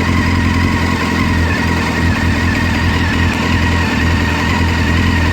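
Honda CBR600 F4i's inline-four engine idling steadily, with a thin steady high tone over the engine note. The owner cannot say what this weird engine noise is.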